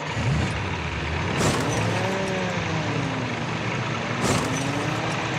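Cartoon sound effect of a truck engine running, its pitch slowly rising and falling in a revving wobble. Two short, sharp noises cut across it, about a second and a half in and again near four seconds.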